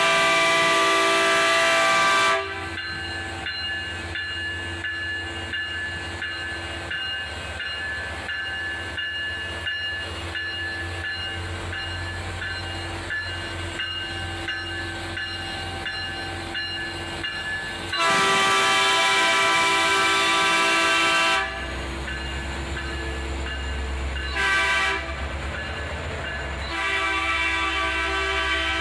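Train locomotive's multi-note air horn sounding four blasts, long, long, short and long, over the steady rumble of the train. This is the standard long-long-short-long warning signal for approaching a grade crossing.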